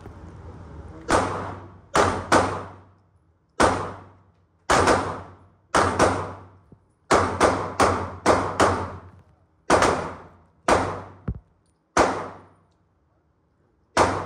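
A string of about sixteen pistol shots from a Springfield handgun, fired at an irregular pace with some quick doubles and triples, each crack followed by a short echoing tail from the indoor range.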